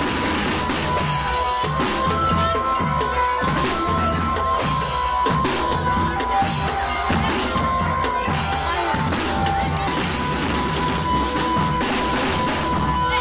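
Children's drum band playing: a steady beat on bass and snare drums under a sustained melody line that steps between a few notes.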